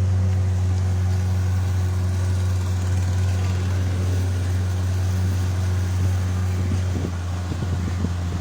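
A motorboat's engine running steadily with a low, even drone. About seven seconds in it eases slightly, with a few irregular knocks.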